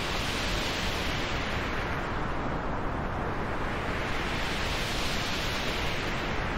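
Transition sound effect made of rushing filtered noise whose brightness slowly swells and fades, a noise sweep rising and falling about every five seconds without a break.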